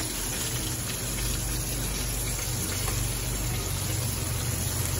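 Flour-coated sardine pieces sizzling steadily in hot oil in a frying pan, over a low steady hum.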